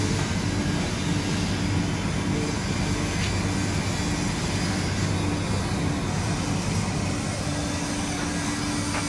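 Electric air blower running steadily, forcing draft into the firebox of a wood-fired deep-fryer furnace: a constant rushing noise with a steady low hum.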